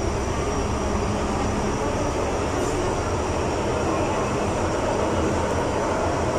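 Cabin noise of a running metro train: a steady rumble and hiss from the wheels on the track, with a faint steady high whine above it.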